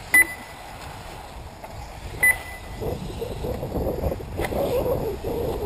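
Two short, loud electronic beeps about two seconds apart, the race lap-timing system registering buggies crossing the line. From about three seconds in, a rough, wavering rushing noise grows louder.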